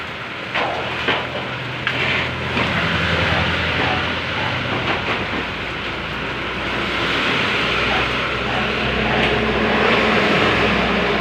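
Thin flat steel roofing sheet being handled and laid onto a bender, giving a few sharp metallic knocks in the first two seconds, over a steady, loud noisy rumble.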